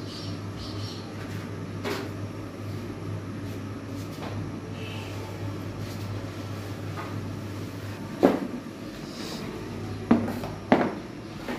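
Several sharp knocks and clatters of kitchen containers and utensils being handled and set down on a stone kitchen ledge, the loudest about eight seconds in and two more near the end, over a steady low hum.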